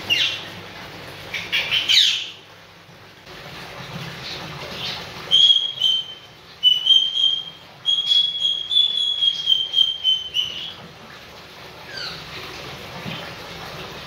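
Senegal parrot calling: a few sharp sweeping squawks near the start, then a run of clear whistled notes at a nearly steady high pitch through the middle, and one falling call near the end.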